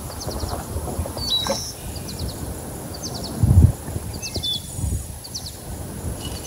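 Small birds chirping in quick little runs of high notes every second or so, over a low outdoor rumble. A dull low thump about three and a half seconds in is the loudest moment.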